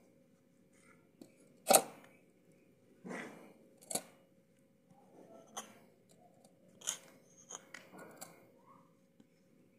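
Plastic mixer-grinder lid scraped and tapped against the rim of a steel grinder jar to clear off ground masala paste: scattered sharp clicks and knocks with short scrapes, the sharpest about two seconds in.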